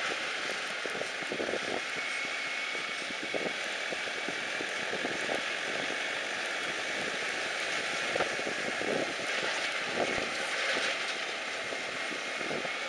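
A car driving slowly along a rural road, heard from inside the cabin: a steady hiss of tyres and wind with occasional light knocks.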